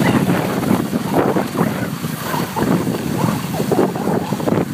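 Wind buffeting the microphone: a steady rush with uneven gusts.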